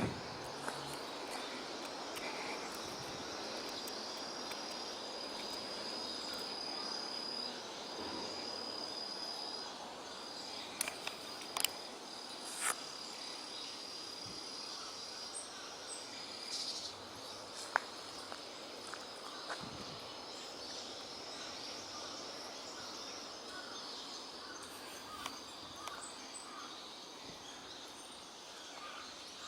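Outdoor ambience with a steady, high-pitched insect trill over a broad background hiss, and a few sharp clicks around the middle.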